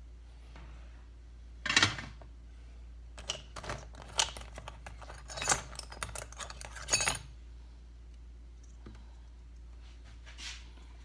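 Small metal tools clinking and clattering on a workbench in a quick series of short clicks and knocks, loudest about two seconds in and again about seven seconds in, over a low steady hum.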